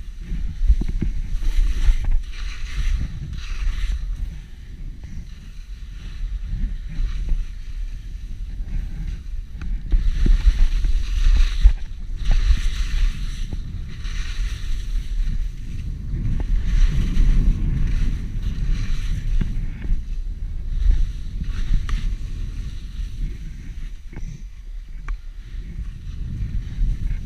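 Wind rumbling on the microphone during a fast downhill run on snow, with bursts of hiss and scraping from edges sliding over packed snow.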